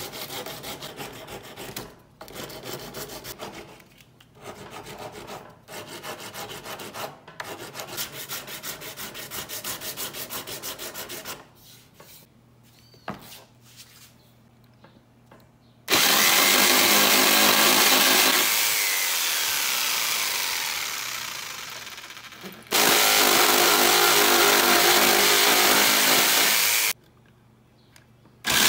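Sandpaper rubbed by hand on a small piece of wood, in quick uneven strokes with short breaks, for about eleven seconds. After a pause an electric power tool runs loudly, winds down slowly with falling pitch, runs again and stops; near the end an electric jigsaw starts up.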